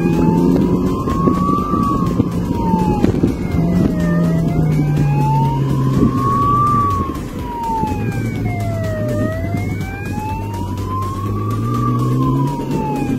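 Police motorcycle's siren wailing, rising and falling slowly about once every five seconds, over the motorcycle's engine and wind rush at speed. The engine note drops about seven seconds in.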